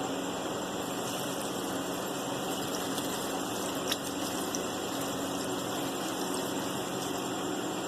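Steady mechanical hum with an even hiss, unchanging throughout, with a single short click about four seconds in.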